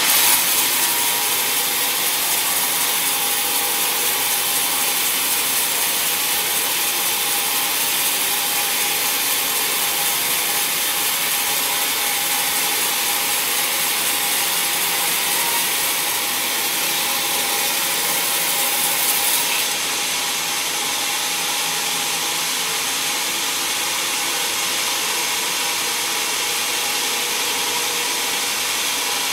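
Band sawmill blade running steadily through an old, decayed teak log, a continuous hissing saw cut through the wood.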